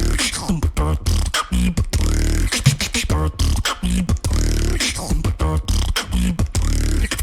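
Beatboxing: fast mouth-made drum sounds over a steady heavy bass line, with short sung or hummed pitched notes woven in.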